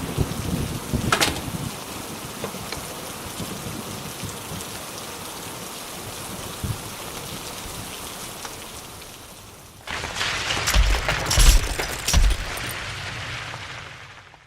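Rain and thunder: steady heavy rain with a sharp crack of thunder about a second in, then a sudden heavier downpour about ten seconds in with deep rumbling thunderclaps, fading out at the end.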